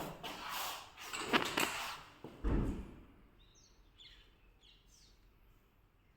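Irregular rustling and knocking noises with a low thump about two and a half seconds in, then a small bird calling in short, repeated falling chirps.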